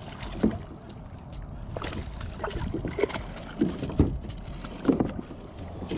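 Water splashing and sloshing beside a plastic kayak as a hooked fish is pulled up out of the water, with several short sharp knocks. Wind rumbles low on the microphone.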